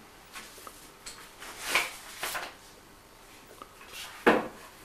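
Quiet room with a few soft rustles and handling noises, scattered brief scrapes, and one louder short sound near the end.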